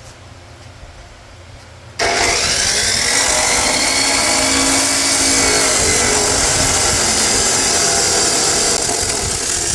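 A demo saw (cut-off saw) starts about two seconds in and runs loud and steady, its abrasive blade cutting through a steel frame bar.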